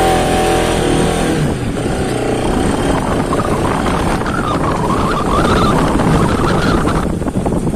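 Bajaj Pulsar RS200 motorcycle's single-cylinder engine running as the bike pulls away and rides on. Its note rises and falls with the throttle.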